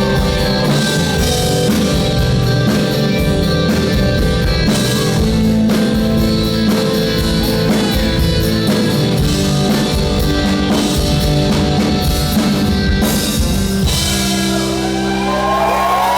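Rock band playing live, with drum kit, electric guitars and some singing. About two seconds before the end the drums stop and a held chord rings out, with guitar notes sliding in pitch over it, as the song finishes.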